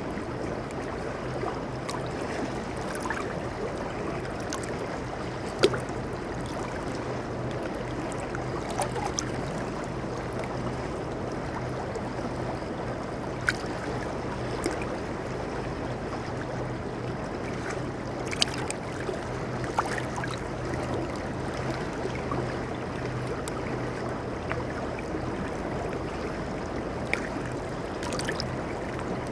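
Shallow river water flowing and babbling over rocks in a steady rush, with a few sharp clicks, the loudest about six seconds in.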